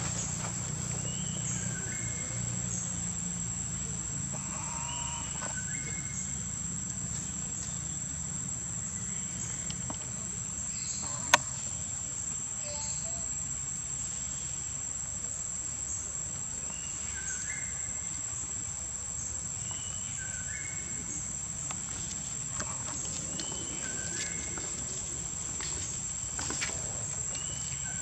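Steady high-pitched insect drone from crickets or cicadas, with short chirps dotted through it. A single sharp click about eleven seconds in is the loudest sound.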